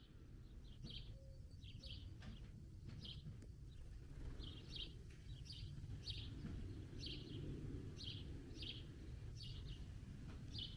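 Faint bird chirping: short, high chirps repeated every half second to a second, over a low, steady outdoor rumble.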